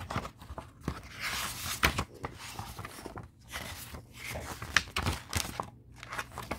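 Paper pages of a paperback picture book being turned by hand: uneven rustling of the sheets with a few sharp, crisp snaps as pages flip over.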